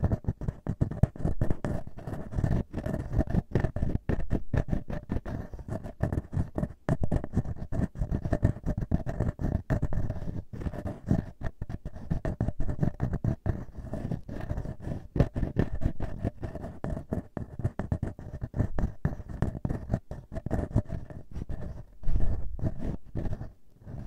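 Fingertips and nails rubbing and scratching directly on a handheld recorder's microphone grille, as imitation ear-cleaning: a dense, continuous crackle of close scratches and rustles, heavy in the low end.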